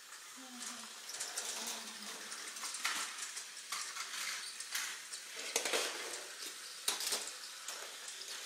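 Small battery-powered toy train engine running along plastic track: a steady motor whir with irregular clicks and clatters as it rolls.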